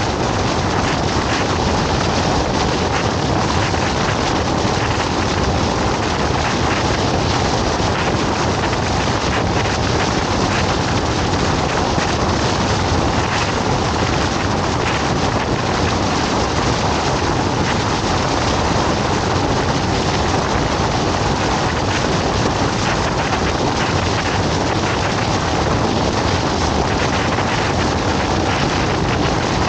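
Strong wind buffeting the microphone and rain, over the road noise of a vehicle driving through a severe thunderstorm: a loud, steady rush that never lets up.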